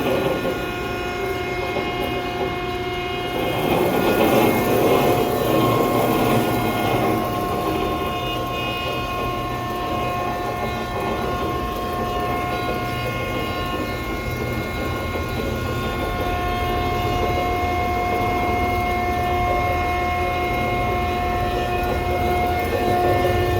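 W.F. Wells & Sons horizontal band saw running with its blade moving: a steady mechanical whine of several held tones over a running rumble, louder and noisier for a few seconds about four seconds in.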